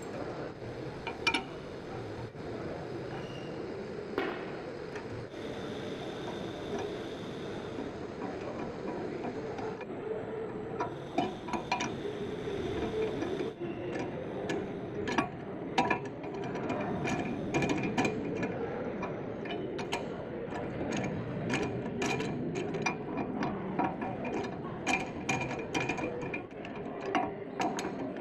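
Four-jaw lathe chuck being tightened with a T-handle chuck key to clamp a workpiece: sharp metallic clicks and clinks from the key and jaw screws, sparse at first and coming several a second from about halfway on, over steady background noise.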